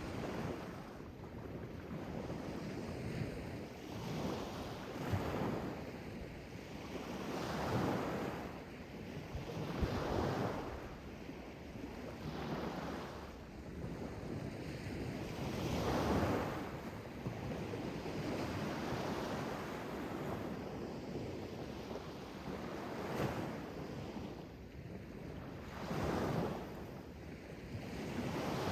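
Sea waves washing onto the shore, the rush of water swelling and falling back every two to three seconds.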